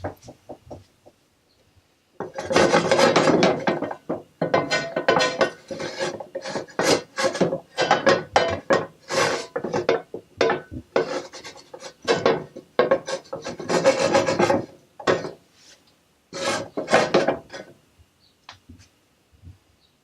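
A kitchen utensil scraping rapidly in repeated strokes, in several long bursts with short pauses.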